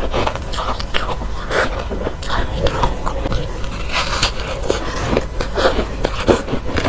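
Close-miked foam ice, a soft frozen ice cake, being pulled apart by hand and then bitten and chewed, giving an irregular run of crunches several times a second.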